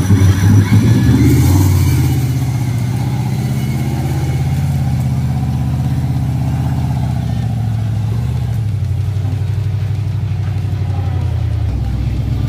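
Off-road competition truck's engine revving hard, then easing back and running on at a steady working pitch, with a drop in its note near the end.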